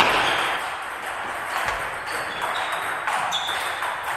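Table tennis balls ticking off bats and tables during practice rallies at several tables, ringing in a reverberant sports hall.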